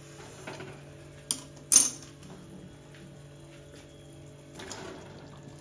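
Two sharp metal clanks of cookware on a steel gas stove about a second and a half in, the second the louder. Near the end, a short soft rush as cubed potatoes are tipped from a steel plate into a steel kadai, over a faint steady hum.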